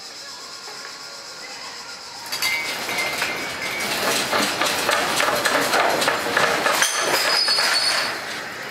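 Soft music, then about two seconds in a sudden loud rattling and clattering starts: a building and its balcony fittings shaking in a strong earthquake. It lasts about six seconds and eases near the end.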